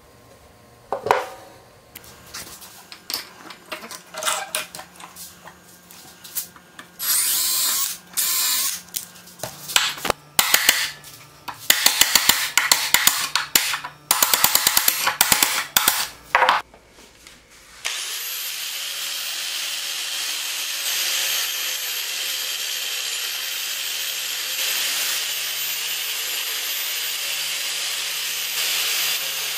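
A few knocks of the steel axe head being handled in a bench vise, then an electric drill run in short bursts, boring the old wooden handle out of the axe's eye. About eighteen seconds in, an angle grinder with a wire wheel starts and runs steadily, stripping rust and paint off the axe head.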